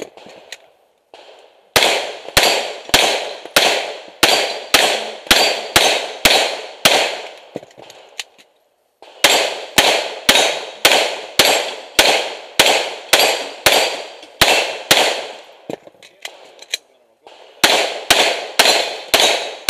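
SJC Glock 17 open-division race gun firing rapid pistol shots at steel targets, about three shots a second. The shooting starts about two seconds in and breaks off twice for a second or two.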